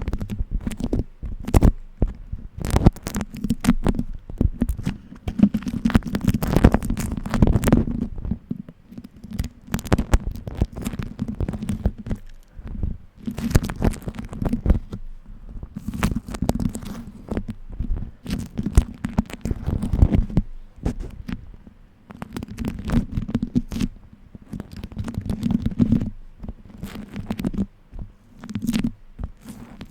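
Beeswax food wrap being crinkled, pressed and peeled apart close to the microphone: dense sticky crackling and popping over a low rumble of handling, in waves with a few short lulls.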